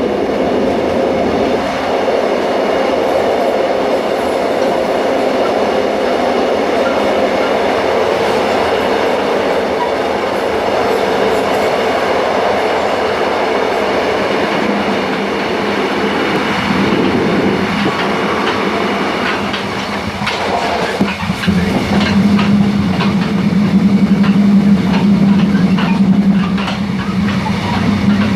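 Connection point between two railway cars of a moving train, clattering and creaking (덜컹덜컹 찌걱찌걱) over the steady running noise of the wheels on the rails. From about halfway a low hum builds and the sharp clicks and creaks come more often.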